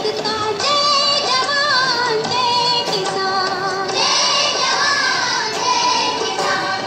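A song with a high singing voice, its held notes wavering in pitch, over instrumental accompaniment.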